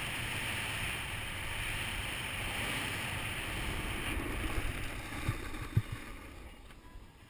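Snowboard sliding over groomed snow with wind rushing past a helmet-mounted GoPro Hero2, a steady hiss and rumble. The hiss fades as the board slows to a stop, with two short low knocks a little after five seconds in.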